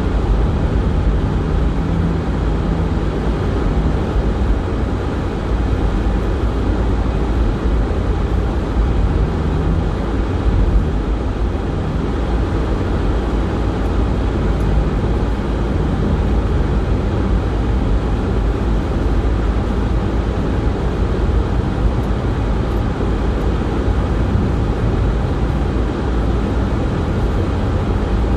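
Car cabin noise while driving on a snow-covered road: a steady low rumble of engine and tyres.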